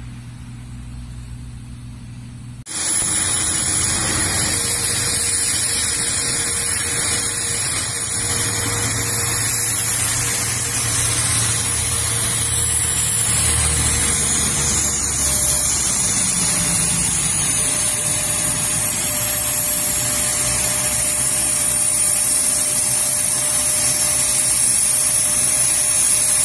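The four turboprop engines of a C-130 Hercules running loud on the ground, a steady rush of noise with a thin high whine. The sound jumps suddenly to full loudness about three seconds in and stays loud, the whine growing stronger near the end.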